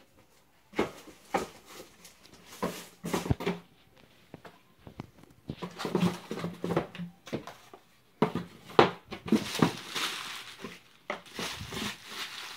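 Hands rummaging through a packaging box: irregular rustling of packing material with scattered knocks and taps, the rustling heaviest about ten seconds in.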